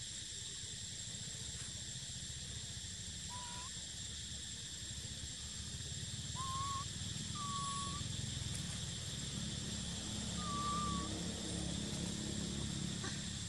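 Steady drone of insects in the trees, with four short whistled animal calls, each well under a second, about three, six and a half, seven and a half and ten and a half seconds in.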